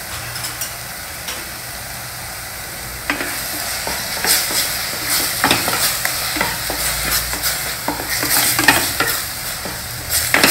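Onion-tomato masala with ground spices sizzling in oil in a pressure-cooker base. About three seconds in, a spatula starts stirring and scraping the paste against the pan in quick, uneven strokes.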